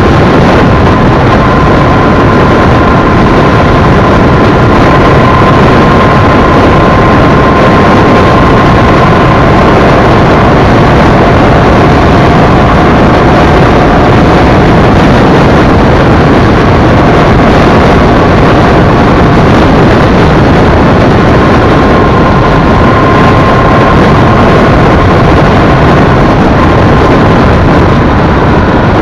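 A Honda Shadow V-twin motorcycle ridden at a steady cruising speed. The engine runs under loud, steady wind and road noise on a bike-mounted microphone, with a faint steady whine throughout.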